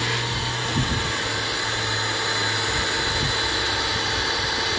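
Shop vac running steadily, sucking through its hose and wand as it is worked over car carpet.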